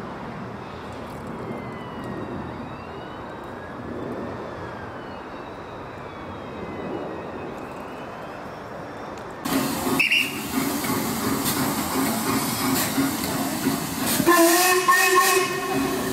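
Steam train's carriages rolling past with a steady rumble and faint squealing glides in pitch. About nine and a half seconds in, the sound jumps to loud steam hissing from the locomotive, and near the end a steam whistle sounds for about a second.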